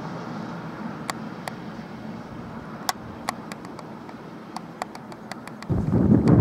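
Steady, slowly fading rumble of a receding SNCB electric multiple unit, with sharp scattered clucks and ticks from a stiff, rusted tripod head as it pans. Near the end a much louder, gusty low noise cuts in.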